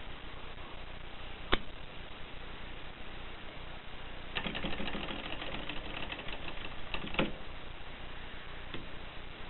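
1950s Voss typewriter mechanism clicking: one sharp clack, then about three seconds of rapid, closely spaced clicking that ends in a stronger clack, and a faint click near the end.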